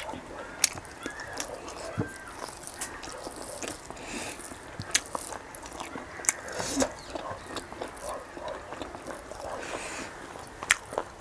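Close-up mouth eating sounds of someone chewing fried pork intestine: wet chewing and smacking with many sharp, irregular clicks.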